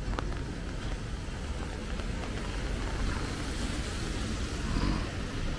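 City street traffic on a rain-wet road: vehicles passing with a steady low rumble and the hiss of tyres on wet pavement.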